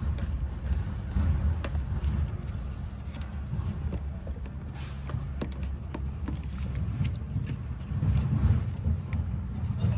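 Light, scattered clicks of a plastic fuel hose quick-connector being worked by hand to release it from a motorcycle's fuel tank, over a low background rumble.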